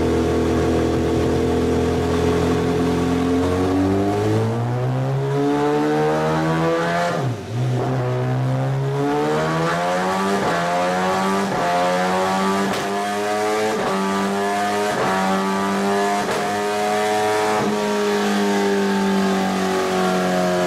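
The inline-four engine of a first-generation MV Agusta F4 750 runs at a steady idle, then is revved up over several seconds. The revs drop briefly about seven seconds in, then climb again and are held high and roughly steady.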